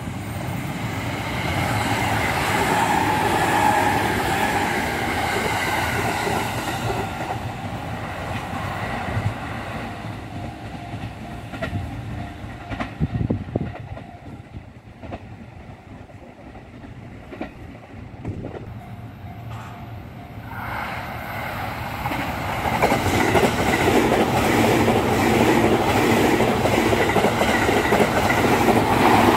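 An E501-series electric train passes close, its traction motors whining over the wheel noise, then dies away. After a quieter stretch with a few clicks, an E657-series limited express passes close, its wheels clattering steadily over the rail joints.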